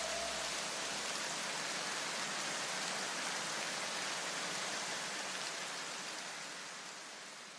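A steady, even hiss like rain, which fades out near the end; the last of the music's deep bass dies away in the first second or so.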